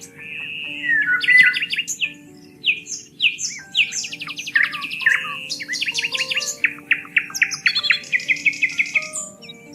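Several songbirds singing and calling at once: fast trills, short chirps and rapid runs of repeated notes, over soft background music with long held tones.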